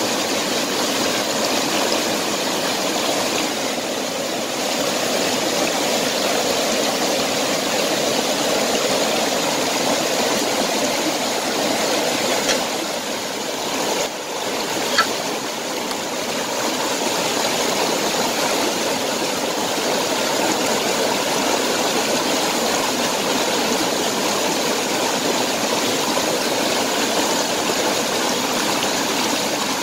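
Steady rush of stream water flowing fast over rocks, with a couple of brief clicks about halfway through.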